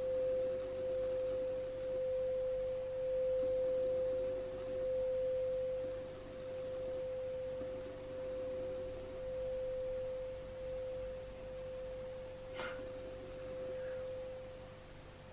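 A single steady, pure ringing tone held for a meditation, swelling and easing in loudness every couple of seconds, with one short click about twelve seconds in.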